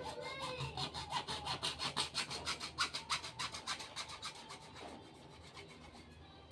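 Hand saw cutting through PVC pipe in quick back-and-forth strokes, about four to five a second, stopping about five seconds in.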